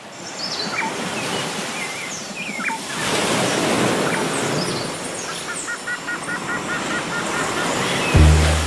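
Ocean surf washing steadily on a beach, with scattered bird chirps and calls over it and a quick run of short repeated notes in the middle. Near the end a deep bass note of music comes in.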